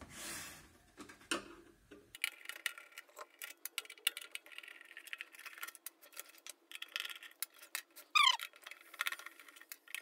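Screwdriver undoing the bolts that hold a microwave oven's magnetron: a run of small metallic clicks and ticks as the screwdriver turns and the bolts come loose. About eight seconds in there is a short squeak that falls in pitch, the loudest sound.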